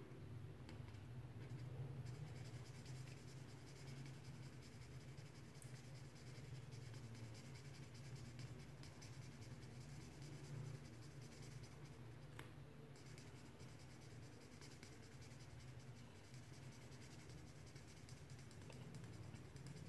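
Black felt-tip marker scratching faintly on paper as dark shapes are filled in, over a low steady hum.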